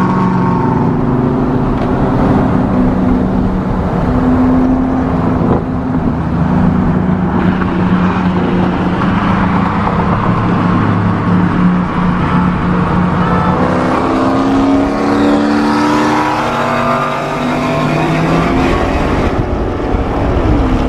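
Car engines running hard at full throttle in a highway roll race started from about 60 mph. The engine note holds steady, then climbs and steps in pitch several times in the second half.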